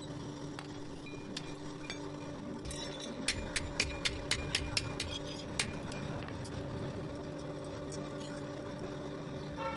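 A quick run of about eight light hammer strikes on steel, a little over three seconds in, with scattered fainter metal clinks before and after, over a steady hum.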